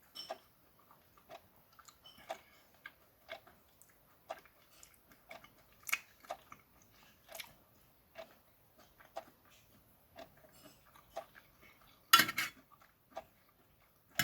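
A person chewing raw oysters: a string of small mouth smacks and clicks, roughly once a second, with one louder burst of sound about twelve seconds in.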